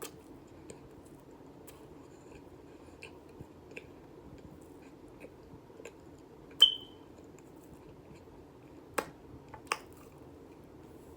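Mouth sounds of eating cornstarch powder: scattered small crunches and clicks. About halfway there is a sharp clink with a brief ring, like a spoon striking a container, and two more sharp knocks near the end.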